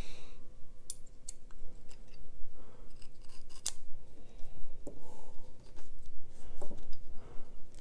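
Small metal parts of a Civivi Crit folding knife, a steel liner and the blade, being handled and fitted together in the fingers during reassembly: a scatter of light, sharp clicks and taps, the loudest about halfway through.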